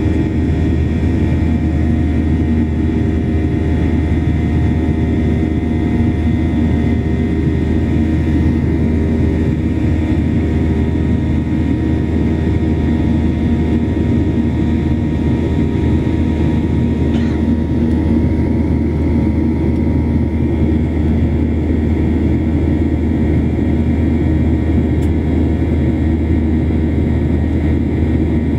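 Jet airliner cabin noise heard from a window seat: a steady engine and airflow drone with several steady whining tones laid over it.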